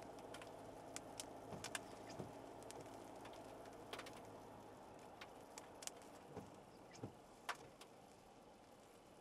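Quiet cabin of a SsangYong All New Rexton SUV on the move: a low, steady engine and road hum, with scattered sharp ticks of raindrops hitting the car at irregular moments.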